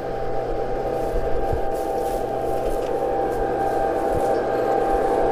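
Battery-powered, radio-controlled G-scale New York Central F-unit model diesel locomotive running toward the listener on outdoor track. It makes a steady hum that grows slowly louder as it approaches.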